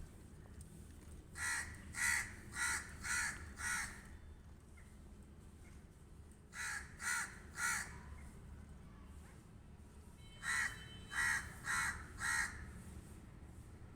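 Pet crow cawing in three bouts of short, harsh calls: about five in quick succession, then three, then four, each bout about half a second per caw.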